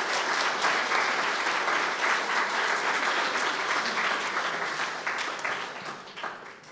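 Audience applauding, dense and steady at first, then thinning out and dying away near the end.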